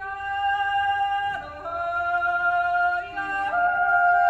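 Swiss yodel choir singing: a woman's yodel voice holds long high notes with sudden leaps in pitch, about a second and a half and three and a half seconds in, over a sustained chord from the rest of the choir.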